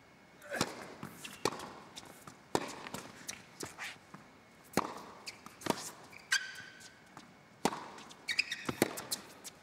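Tennis rally on an indoor hard court: a serve, then racket strikes and ball bounces trading back and forth about once a second, with a couple of short high shoe squeaks on the court surface.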